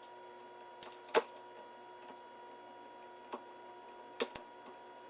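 Bicycle headset top bearing being fitted into the head tube: a few short sharp clicks of the parts meeting, the loudest about a second in and more near three and four seconds in, over a faint steady hum.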